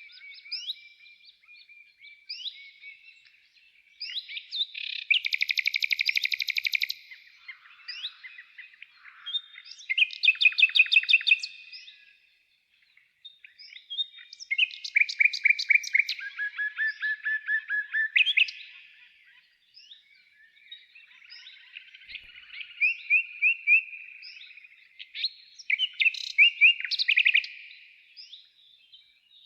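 A songbird singing: phrases of high chirps and fast trills of repeated notes, each a few seconds long, with short pauses between them.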